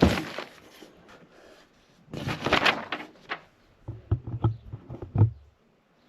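Handling noises: a sharp knock, a rustling scrape about two seconds in, then a run of clicks and dull thumps.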